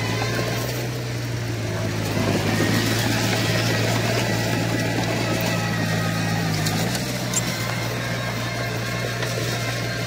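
Komatsu bulldozer's diesel engine running steadily, growing louder from about two seconds in and easing back near seven seconds.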